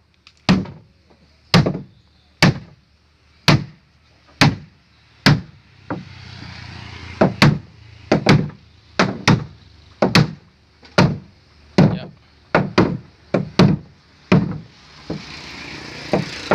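Flat wooden beater striking the top edge of a wooden boat's side plank, knocking a freshly glued plank tight against the hull. Dull, sharp knocks come about once a second, then quicken to nearly two a second about halfway through.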